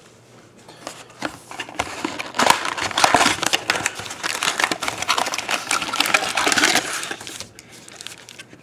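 Foil-wrapped trading card packs crinkling and clicking against each other as they are pulled out of a cardboard box and stacked, a dense run of crackles that starts about half a second in and dies down near the end.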